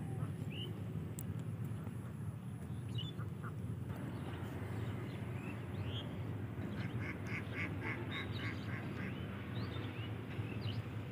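Birds calling over a steady low rumble: scattered short chirps, and about two-thirds of the way in a quick series of about eight short calls, around five a second.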